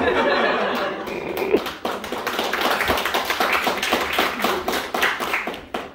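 Audience applauding: a dense patter of many hands clapping that stops fairly suddenly near the end.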